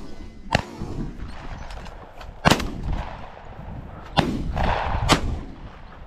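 Several shotgun shots while bird hunting, sharp blasts one to three seconds apart, the loudest about halfway through.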